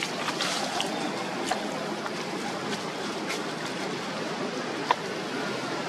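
Steady rushing outdoor background noise with scattered faint clicks, and one sharp click a little before the end.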